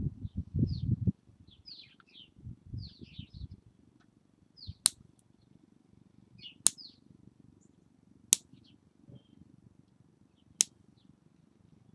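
Metal nail clipper snipping fingernails: four sharp clicks about two seconds apart, with birds chirping in the background. A low rumble fills the first second.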